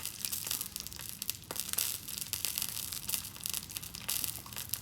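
Food frying in hot oil in a pan, a steady dense crackle of spitting and popping oil.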